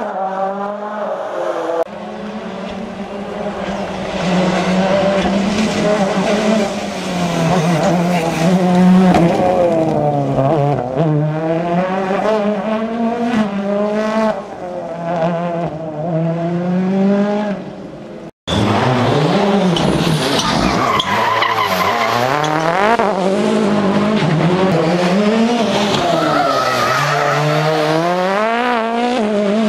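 Rally car engines at full load on a stage, revving up and dropping back again and again through gear changes and corners. The sound cuts abruptly to another car about two seconds in and again after about eighteen seconds.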